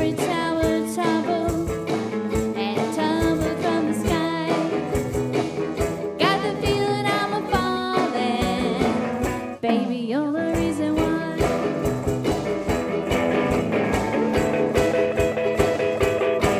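Live band music: electric guitar and ukulele played together, with a woman's singing voice at times. About ten seconds in there is a slide down in pitch.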